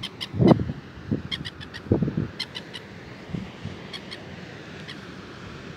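Gull calling overhead in flight, a few short calls at uneven intervals.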